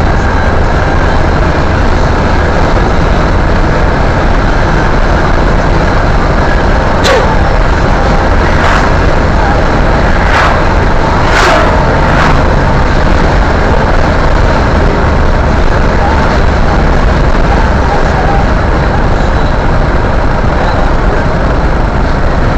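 Road noise inside a moving car: a steady low rumble of engine and tyres at cruising speed, with a handful of brief sharp bursts of noise between about seven and twelve seconds in.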